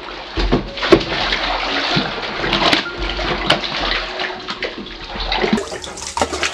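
Water splashing and sloshing as a long-handled scrub brush is worked around inside a water barrel, with irregular sharp knocks and splashes every half second or so.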